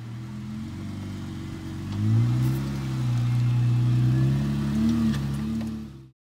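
Jeep Wrangler Rubicon engine running as the four-door climbs a dirt track, rising in pitch and getting louder about two seconds in as it accelerates past, then cutting off suddenly near the end.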